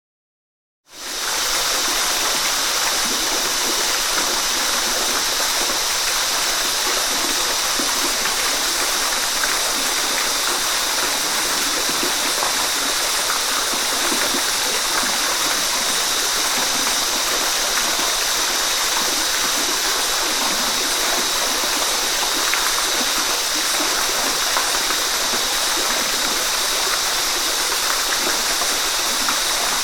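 Steady rain falling in a forest, fading in within the first second and then holding an even, unbroken hiss.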